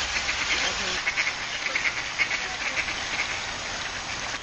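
Ducks calling in a rapid string of short quacks over the steady rush of water spilling into a pond.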